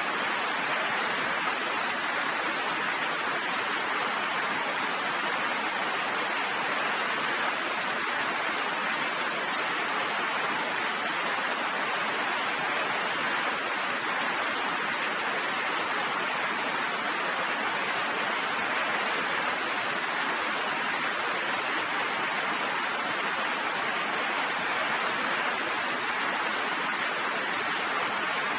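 Rain falling steadily: an even, unbroken hiss with no thunder.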